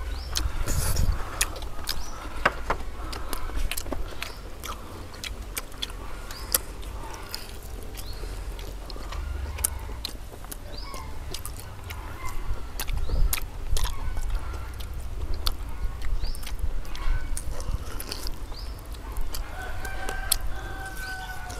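Intermittent clicks and knocks of eating at a table, with a rooster crowing: one long held crow starting about three quarters of the way through.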